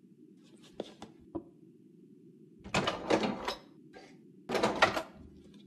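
A couple of light knocks, then two bursts of rattling clatter about a second each: objects being handled and moved about, with a door or drawer being worked.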